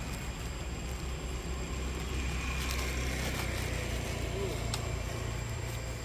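A steady low engine hum, like a motor idling nearby, with a faint high tone in the middle.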